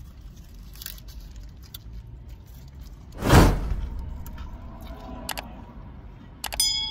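Subscribe-button animation sound effect: a loud whoosh about three seconds in, then a mouse click and a ringing bell ding near the end. Faint paper-wrapper rustling underneath.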